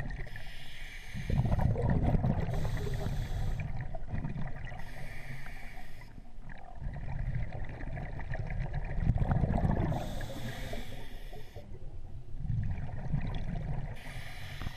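Water moving around a submerged camera, heard from underwater: a muffled low rumbling and sloshing that swells and fades, broken by several bursts of hiss about a second long.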